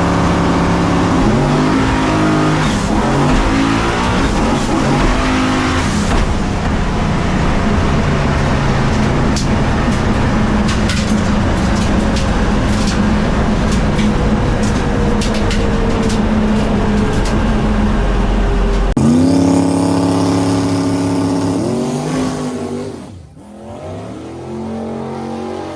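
Race car engine running loud at full throttle, rising in pitch as it accelerates. About three-quarters of the way through, the sound cuts abruptly to another stretch of an engine revving up with rising pitch, with a short drop in level near the end.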